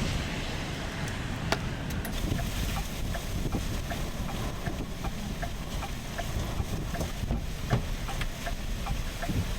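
Steady low rumble of wind and vehicle noise, with a faint ticking about twice a second through the second half.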